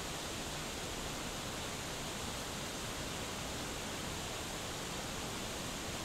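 Waterfall spilling down a rock face: a steady, even rush of falling water.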